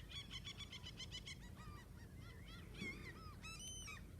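Birds calling faintly: a quick run of short, high, repeated chirps, then scattered calls, with a louder call about three and a half seconds in.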